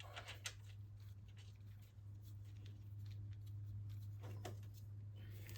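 Faint rustling and a few light clicks of hands handling parts, over a steady low hum.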